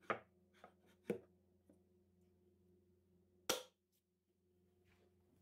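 Sliding wooden panel of a jewelry box's secret compartment being worked by hand: a few light wooden clicks and taps, with one louder knock about three and a half seconds in.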